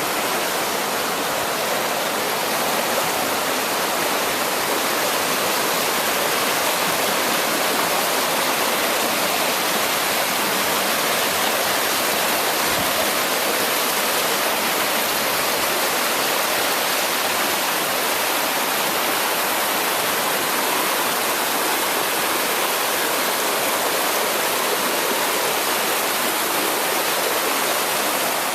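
Waterfall on the Pedernales River, water rushing steadily over the falls.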